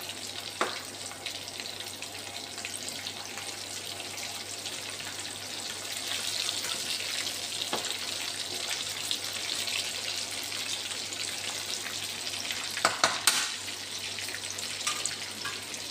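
Battered chicken pieces frying in hot oil in a pan, a steady sizzle, with a few clinks of a metal utensil turning them over, a quick cluster of them about 13 seconds in.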